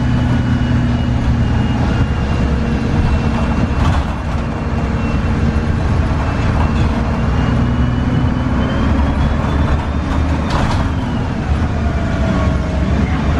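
A 2002 Gillig Advantage transit bus under way, heard from inside: its Cummins ISC diesel engine drones steadily, with a high thin whine from the drivetrain that sinks slowly and then climbs again. Two short bursts of noise come about four seconds and ten and a half seconds in.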